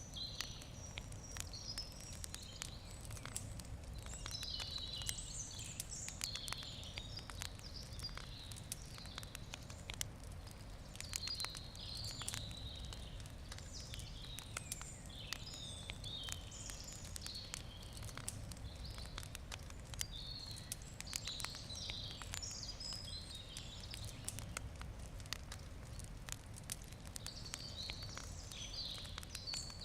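Wood campfire crackling with frequent small sharp pops, while birds sing with repeated chirps in the background over a steady low rumble.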